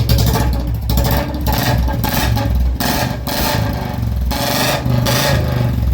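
Royal Enfield Bullet Standard's single-cylinder engine running through an old-model C-bend header pipe and short bottle silencer. Several irregular bursts of rubbing, scraping noise lie over it.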